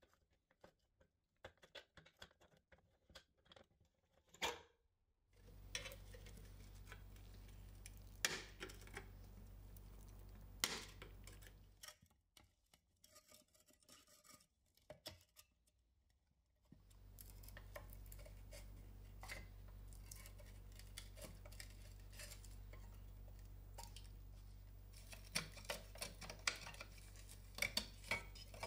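Scattered clicks, scrapes and light metallic clinks from a screwdriver and hands working on the rusty sheet-metal body of a toy cement-mixer truck. The sharpest clicks come about four seconds in, around eight and eleven seconds, and in a cluster near the end. A faint low hum runs under two long stretches.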